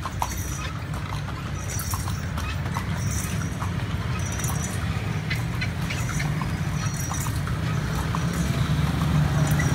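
A calesa horse's hooves clip-clopping on a paved street as the horse-drawn carriage rolls along, over a steady low rumble of the moving carriage.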